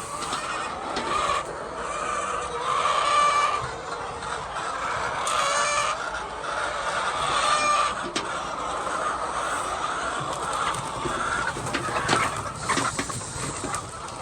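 Chickens clucking, with several drawn-out calls of about a second each in the first half, and a few sharp clicks near the end.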